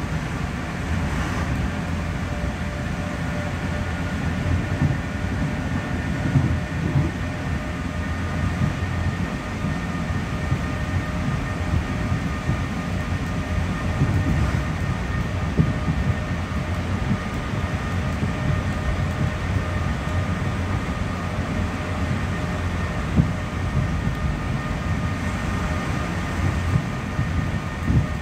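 Class 465/1 Networker electric multiple unit heard from inside the carriage, cruising at about 69 mph: a steady high-pitched traction motor and gearbox whine over the low rumble of the wheels on the track, with a few short knocks.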